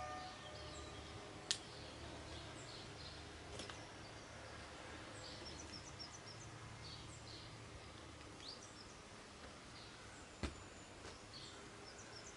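Quiet outdoor ambience: small birds chirping and calling at intervals, with a quick run of chirps about halfway through, over a low steady background rumble. Two sharp clicks stand out, one about a second and a half in and one near the end.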